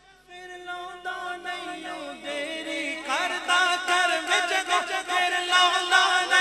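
A man singing a Punjabi naat (devotional song in praise of the Prophet) without words heard, in long drawn-out notes. The voice starts faint, swells, and glides upward about three seconds in.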